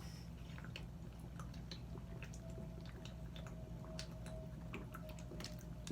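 Faint chewing of tortilla chips with salsa: scattered small crunches and clicks over a low steady room hum.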